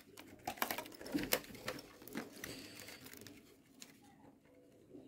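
Quick clicks, taps and rustles of a plastic toy boat and its packaging being handled, busiest in the first two and a half seconds and then thinning to a few faint clicks.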